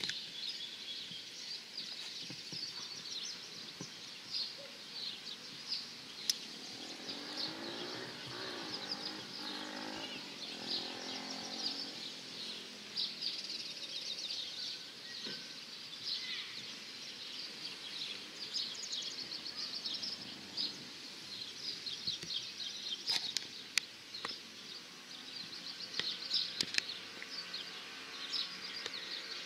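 Many small birds chirping busily and without pause, a dense outdoor chorus of short, high notes, with a few sharp clicks here and there.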